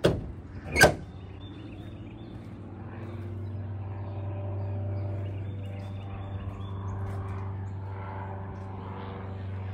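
A car hood pushed shut on a 2012 Chevrolet Camaro: two sharp thumps less than a second apart as it is pressed down and latches. After that a steady low droning hum carries on in the background.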